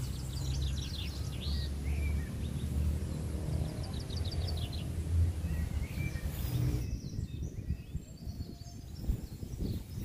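Wind rumbling on the microphone with birds chirping in short trills over it. About seven seconds in the sound changes to patchier, gusting wind buffeting with fainter bird calls.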